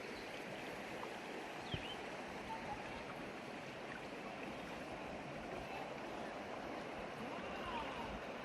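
Steady rushing of a river running over rocks and bedrock, with a single faint click about two seconds in.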